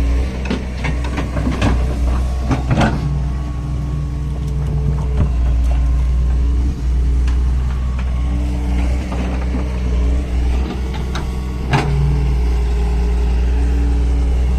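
Excavator's diesel engine running under load, a steady low drone with tones that shift up and down as the hydraulics work. Several sharp knocks in the first few seconds and another near the end.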